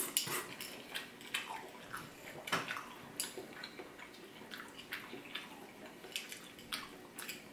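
Eating an oyster from the shell: faint wet mouth sounds with scattered small clicks of a fork picking against the shell.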